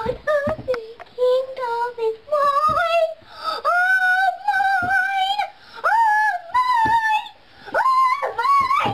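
A young girl singing loudly in a high voice: about five phrases of long held notes that slide up and down in pitch between them.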